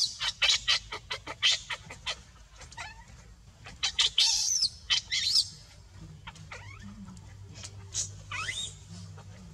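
Baby macaque crying in a rapid run of short, shrill, high-pitched screams, thinning after about five seconds to a few separate squeals, one of them rising in pitch near the end.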